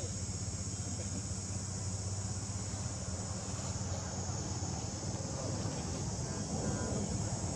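Steady, high-pitched chorus of insects, with a low steady rumble underneath.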